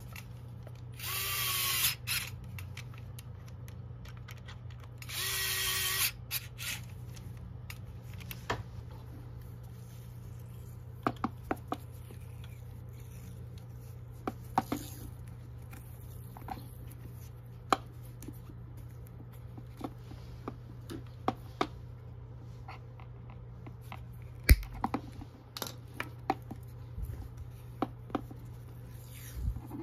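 An electric screwdriver runs twice, about a second each time, at a steady pitch, driving the screws of a wood router's top motor cover. After that come scattered light clicks and handling noises while harness tape is wrapped around the cable.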